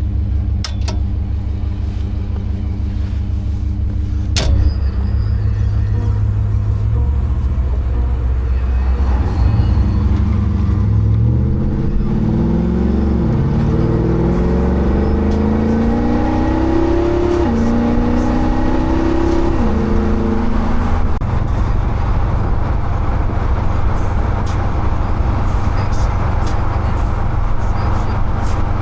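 2013 Jeep Wrangler JK engine and exhaust while driving: a steady hum at first, then the engine note climbs under acceleration and drops twice at upshifts, about two-thirds of the way in. After that it settles into steady cruising with road noise. A short knock sounds twice early on.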